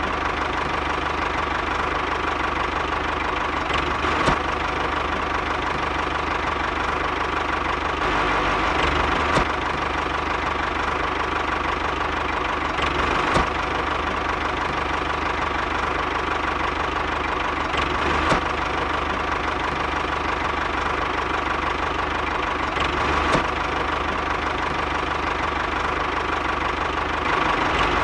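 Steady engine running with a knocking chug, like a tractor engine idling, with a faint click about every five seconds.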